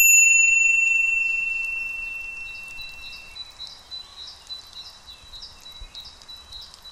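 A single bright chime struck once as an end-card sound logo, ringing and fading away over about three seconds. Faint, high, irregular chirps follow it.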